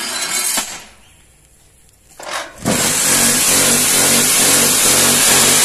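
After a short noise and a moment of quiet, the two electric vibrator motors of a cinder-block making machine switch on together about two and a half seconds in and run loudly with a steady buzz and a regular low pulsing. They are shaking the concrete mix in the mould under the lowered press to compact the blocks.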